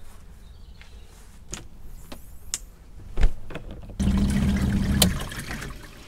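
Gizmos TG910 portable washing machine's wash motor running with water sloshing in the tub, then stopping abruptly about a second later as the wash timer runs out, with no buzzer or alert. Before it, a few scattered knocks and clicks.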